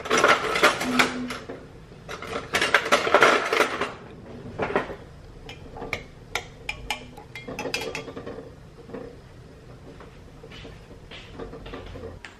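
Metal cutlery clattering as a hand rummages through a cutlery drawer, in two loud spells over the first few seconds. A long metal spoon then stirs in a drinking glass, clinking against it in a run of sharp clicks, and the sounds thin out to occasional light taps.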